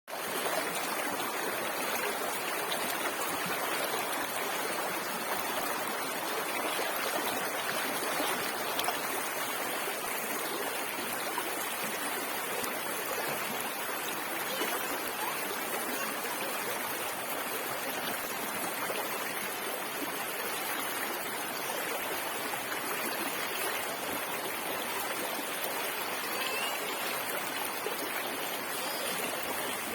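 Water rippling and trickling in a stream, a steady even splashing that carries on without a break.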